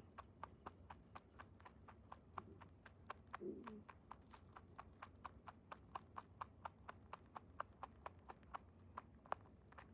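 Netherland dwarf rabbit chewing, a fast, even run of faint crunching clicks at about five a second.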